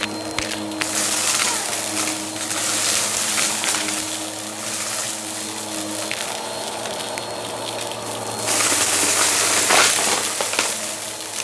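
Bissell bagless upright vacuum running, with a steady motor hum and airflow hiss, as it sucks up sequin confetti from a rug with a crackling rattle. The sound gets louder and brighter about a second in, and again from about eight and a half to ten and a half seconds in.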